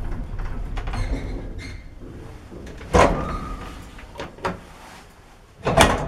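Old Zremb passenger lift: its low running rumble fades over the first couple of seconds, followed by a sharp metallic clunk about three seconds in, a smaller knock, and a loud metal door bang near the end.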